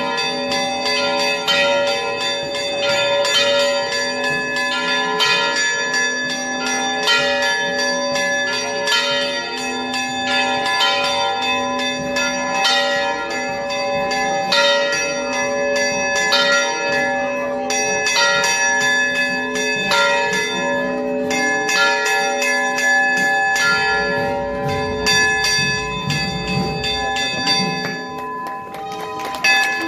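Church bells ringing a continuous peal, strokes following one another quickly with their tones overlapping and ringing on.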